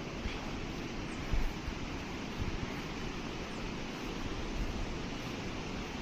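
Steady rushing noise with wind buffeting the microphone in uneven low gusts, the strongest about a second and a half in.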